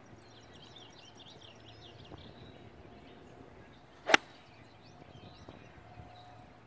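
Golf iron swung through and striking a ball off fairway turf, taking a divot: one sharp crack about four seconds in, with a brief swish just before it.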